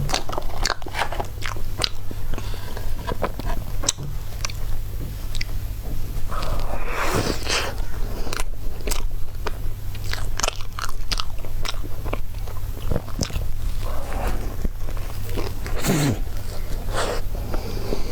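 A person eating dessert close to the microphone: chewing, biting and wet mouth clicks, with a steady low hum underneath.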